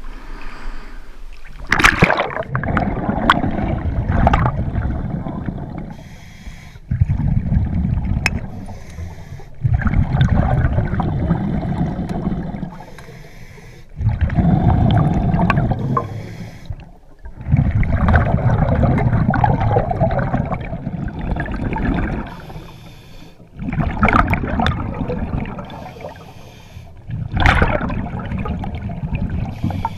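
Scuba diver breathing through a regulator underwater, heard close up: exhaled bubbles gurgle out in bursts every three to four seconds, with quieter gaps for the inhales between. A splash comes about two seconds in as the diver goes under.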